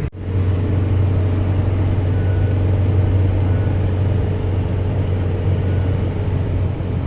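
GAZelle Next light truck driving, a steady low drone of engine and road with faint steady higher tones above it.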